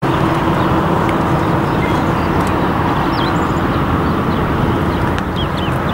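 A steady low rumble and hiss of outdoor noise, with a few short, high bird chirps from about three seconds in and again near the end.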